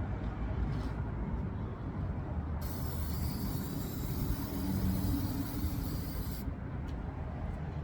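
An aerosol can of rust protector spraying in one continuous hiss for about four seconds, starting about two and a half seconds in and cutting off abruptly, over a steady low rumble.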